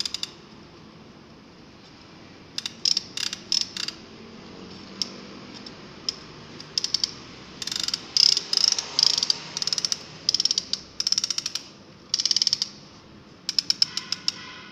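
Hand-operated strap tensioner ratcheting as its lever is pumped to tighten a white cord strap through a metal buckle: bursts of rapid sharp clicks. A few strokes come about three seconds in, then a pause, then repeated bursts from about seven seconds on.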